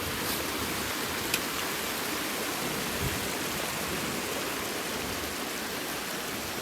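Steady rushing and splashing of a small mountain snowmelt stream carrying a lot of water, with a brief sharp click about a second and a half in.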